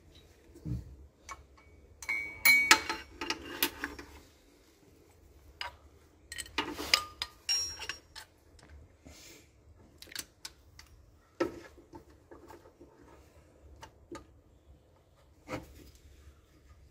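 Metal hand tools clinking and clicking against engine parts during belt-drive work from underneath the car. Two bursts of rattling metallic clatter come about two seconds in and again a few seconds later, followed by a few single sharp clicks.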